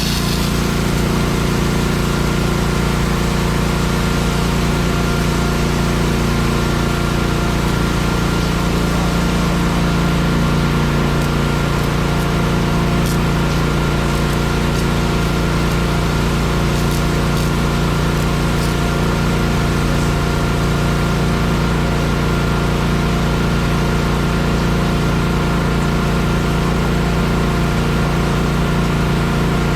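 An engine running steadily at a constant speed, with a thin steady whine above it, typical of heavy equipment working on a tar-and-chip paving job.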